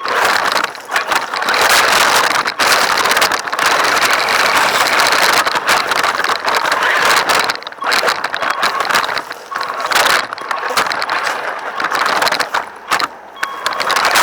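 Radio-controlled car driving: a loud, rough, uneven noise that breaks off and picks up again many times.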